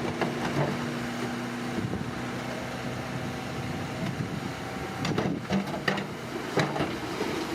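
Engine of a working construction machine running steadily, with several sharp metallic knocks about five to seven seconds in.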